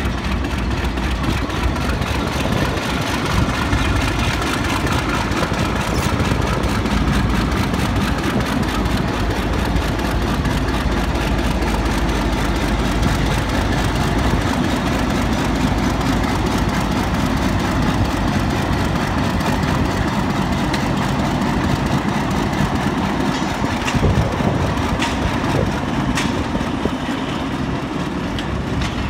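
A Pakistan Railways PHA-20 diesel-electric locomotive's engine running steadily as it pulls a train slowly past. Near the end there are a few sharp wheel clicks as the coaches start to roll by.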